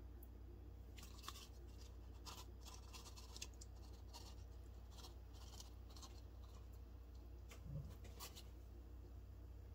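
Faint, short scrapes and clicks as sliced jalapeño rings are tipped out of a container onto the cheese-covered enchiladas, with one soft thump near the end, over a steady low hum.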